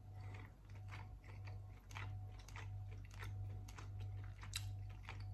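A person chewing a mouthful of soft cooked mackerel with faint, regular wet mouth clicks, about two to three a second, over a low steady hum.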